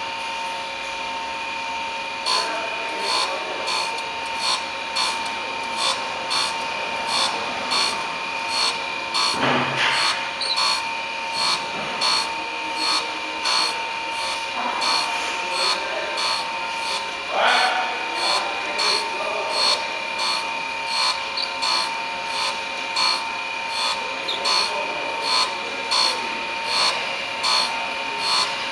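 Chevalier hand-feed surface grinder: the steady whine of the running spindle, with a rasping grind that swells about one and a half times a second from about two seconds in as the table is fed back and forth and the wheel cuts across a test block.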